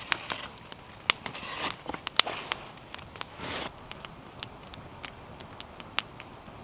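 Wood campfire crackling, with sharp irregular pops, the loudest about two seconds in. A few softer rustles come in the first few seconds.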